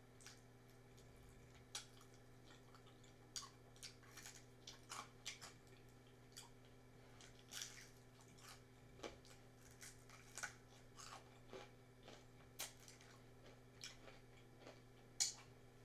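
Close-miked chewing and biting of crunchy fried food, most likely Popeyes fried chicken, with irregular crisp crunches and one sharper crack near the end.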